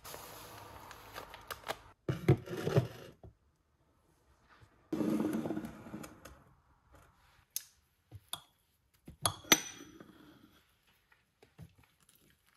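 Dishes and metal utensils knocking and clinking, with short stretches of noise in the first half and a few clinks that ring briefly about nine to ten seconds in.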